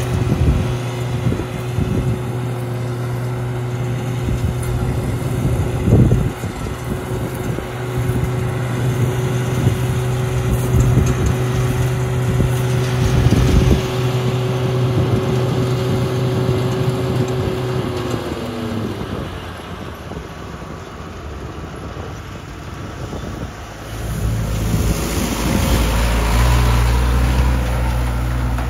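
An engine running steadily, its pitch dropping and the sound easing off about two-thirds of the way through. A few seconds later a louder, rougher rumble with a low hum sets in.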